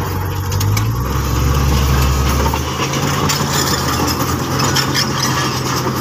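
Komatsu crawler bulldozer's diesel engine running steadily as the machine crawls over rocky fill. The deepest part of the engine hum drops away about two and a half seconds in.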